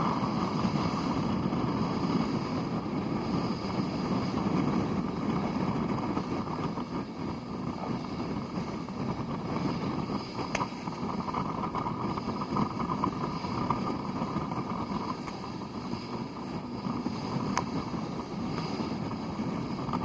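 Steady rush of wind and water from a boat under way at sea, with wind buffeting the microphone and two faint clicks about ten and seventeen seconds in.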